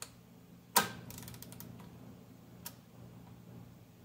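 Ratchet head of a GEARWRENCH 120XP digital torque wrench clacking onto the square drive of a digital torque adapter, followed by a quick run of ratchet clicks and one more click about two seconds later.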